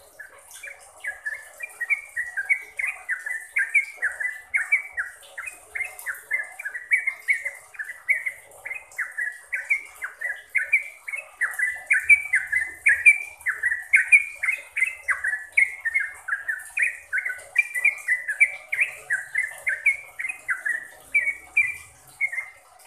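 Yellow-vented bulbul (trucukan) singing a fast, unbroken run of short notes, several a second, rising and falling in pitch. It starts about a second in: the full, continuous 'gacor' song that keepers play to draw other trucuk into song.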